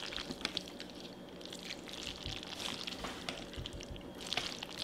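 Close-up wet eating sounds of spaghetti in meat sauce: chewing, slurping and saucy noodles being moved, with many small clicks.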